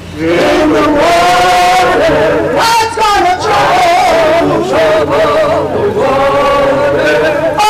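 A group of men and women singing a chant together, the melody held and bending, with a high warbling voice about three seconds in.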